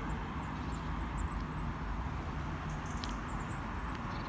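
Outdoor ambience: a steady low rumble of wind and distant road traffic, with a few faint high bird chirps scattered through.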